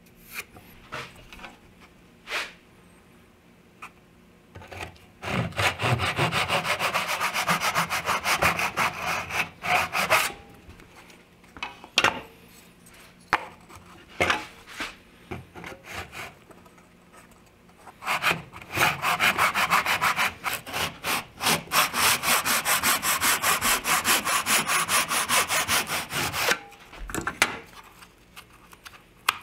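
Brass-backed hand saw crosscutting a small wooden strip in two bouts of quick back-and-forth strokes, the first about five seconds long and the second about eight, with a few light taps of the wood and tools before and between them.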